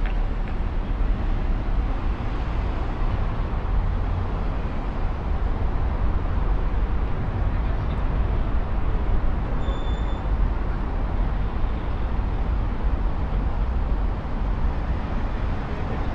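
City street traffic noise: a steady, continuous low rumble of passing vehicles, with one short high beep about ten seconds in.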